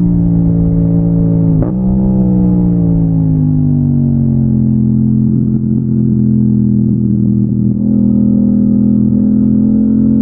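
Yamaha MT-07's 689 cc parallel-twin engine under way, heard from the bike: a gear change about a second and a half in, then revs falling for a couple of seconds, holding steady, and slowly rising again near the end.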